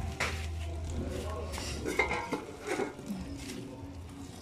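Metal spoon clinking and scraping against a metal cooking pot as food is stirred, with several separate knocks.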